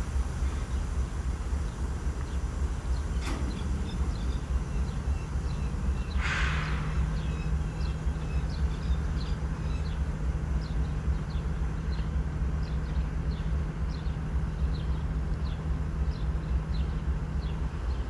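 CSX mixed freight train standing or barely moving, giving a steady low rumble. About six seconds in there is a short hiss, and a steady low hum then holds until near the end. Small birds chirp repeatedly over it.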